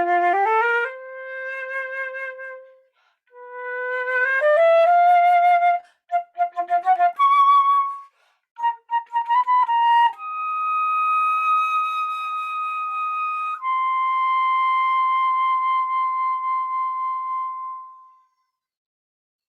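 Solo flute playing the closing phrases of a piece: rising runs of notes, a passage of short quick notes, then two long held high notes. The last note fades out about 18 seconds in.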